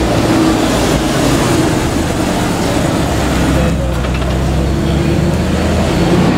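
Audi R8 supercar engine running at low speed as the car crawls past, over a steady noise of street traffic and people.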